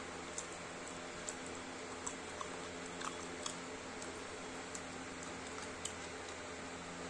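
Someone chewing and eating, with soft, irregular mouth clicks, about eight over several seconds. Under it runs a steady background hiss and hum.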